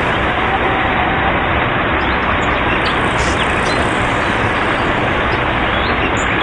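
Mountain stream rushing over boulders and small cascades: a loud, steady rush of water.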